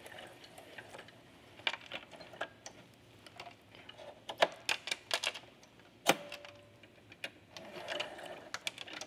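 Scattered light clicks and taps at irregular intervals from hands handling a Brother sewing machine's needle and presser-foot area while rethreading it.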